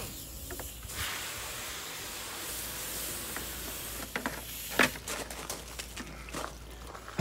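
Water hissing from a hose spray nozzle as it rinses sanding slurry off wet-sanded paint on a boat hull, lasting a few seconds and stopping about two-thirds of the way in; scattered knocks and clicks follow.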